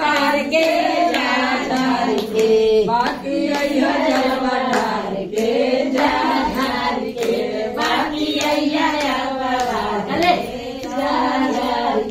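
A group of women singing a Shiva devotional chant together, phrases sliding up and down in pitch, with sharp hand claps scattered through it.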